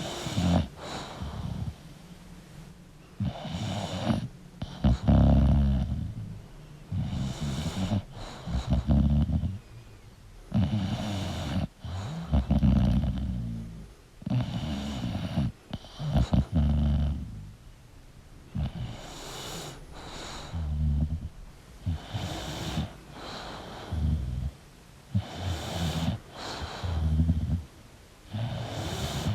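English bulldog snoring in its sleep, a steady rhythm of noisy breaths in and out, about one breath every three to four seconds. The snoring is typical of the breed's short-muzzled airway.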